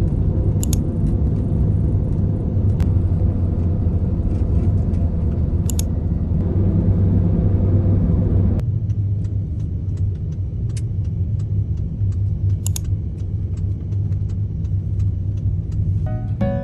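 Engine running steadily with a low rumble, plus a few scattered light clicks. The higher hiss drops away about eight and a half seconds in.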